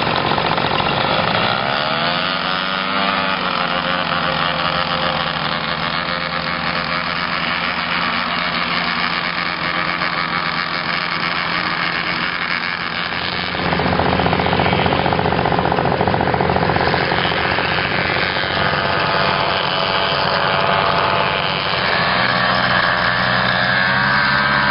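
Paramotor engine and propeller running at high power for take-off, the pitch rising about two seconds in as it is throttled up. It gets louder about halfway through.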